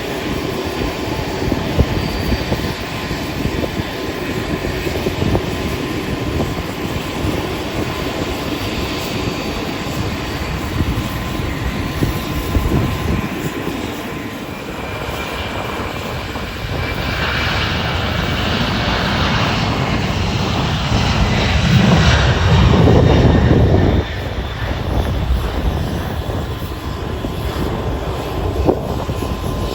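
Four-engine Boeing 747 (Air Force One) jet engines running with a heavy rumbling roar. The sound swells about two-thirds of the way in, is loudest for a couple of seconds, then drops off suddenly.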